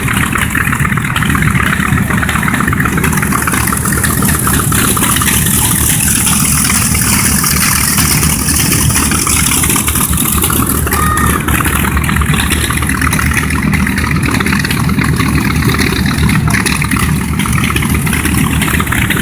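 MXS aerobatic airplane's six-cylinder piston engine running steadily and loudly, with a hiss that swells and fades about midway.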